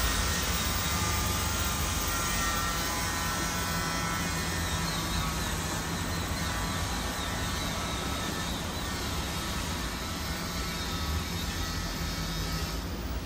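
Steady mechanical drone with a high whine through it, slowly getting quieter.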